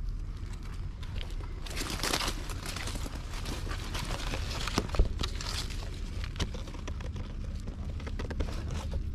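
Dry fallen leaves and twigs rustling and crackling in uneven bursts as a gloved hand rummages through leaf litter to pick mushrooms. There is a sharp click about five seconds in, over a steady low rumble.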